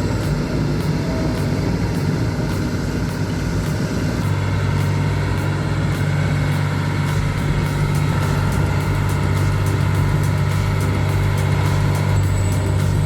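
Heavy machine's engine running steadily, a low drone that grows stronger about four seconds in.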